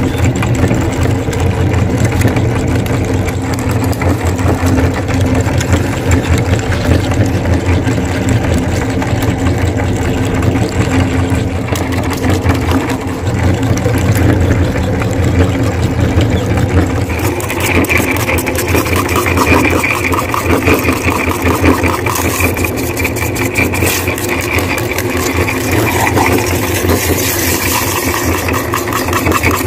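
Belt-driven meat grinder running steadily under load as it grinds eggs: a constant low hum with a fast rattle, a higher tone joining a little past halfway.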